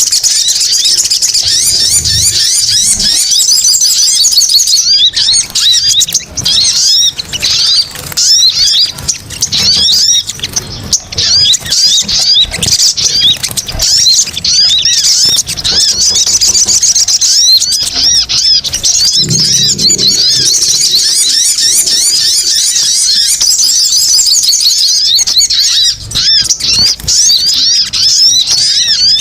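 Dense, continuous chattering of sogon (little spiderhunter) calls: rapid, high-pitched chirps overlapping without pause, the excited "ribut" chatter played as a bird lure to draw the birds in.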